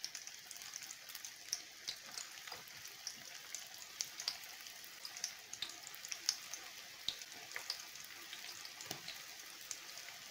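Stuffed qatayef pastries deep-frying in very hot oil: a steady sizzle with frequent sharp crackles and pops.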